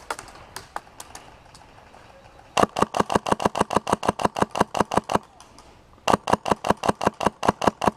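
Airsoft rifle, a Classic Army G3 run on a Polar Star Fusion Engine compressed-air system, firing two long full-auto bursts of rapid, evenly spaced shots. The first starts about two and a half seconds in and the second about six seconds in, with a few faint single shots from farther off before them.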